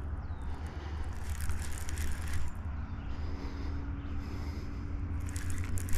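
Fishing reel cranked quickly in two spurts, the second near the end, in a fast-reel-and-pause retrieve, over a steady low rumble.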